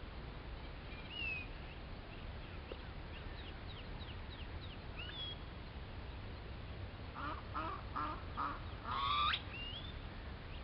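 Birds calling over a steady background hiss. Quick thin chirps sliding in pitch come first, then about four short harsh calls and a louder rising call near the end.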